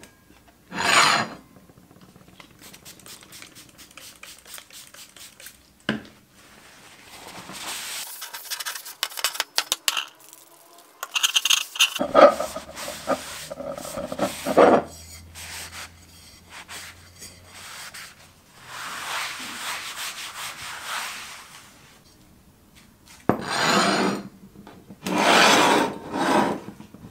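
A paper towel rubbed in spells of strokes over the rough, bare surface of a sandblasted pan, the loudest spells about a second in and near the end. There is a single knock of the pan on the tabletop near the middle.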